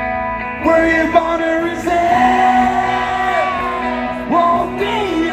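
Live rock band playing, with a singer holding long notes that slide up into pitch over guitars.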